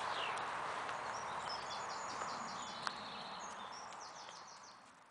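Woodland ambience with a songbird singing quick runs of repeated high notes, twice, over a steady outdoor hiss; a single sharp tap sounds about three seconds in, and the sound fades out near the end.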